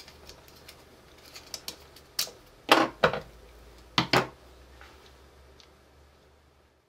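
Plastic parts of a PlayStation Eye camera being handled and fitted together: a few light ticks, then about five sharper clicks and knocks between two and four and a half seconds in.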